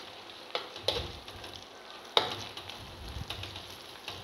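Slotted metal spatula scraping and knocking against a stainless steel pan while ginger-garlic paste is sautéed with browned onions in oil, over a faint sizzle. A few sharp clinks, the loudest about two seconds in.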